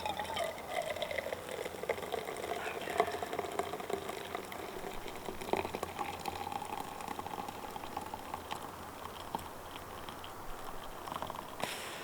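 Pot of water heating on a camp stove and coming up to the boil, with a faint wavering singing tone over a steady hiss.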